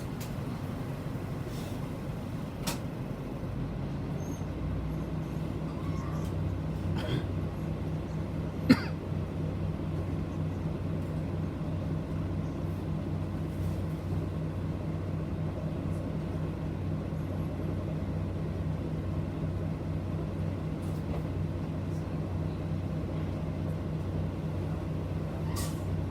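City bus diesel engine running, heard from inside the passenger cabin as a steady low hum that grows a little louder about five seconds in. A sharp click sounds a few times, loudest about nine seconds in.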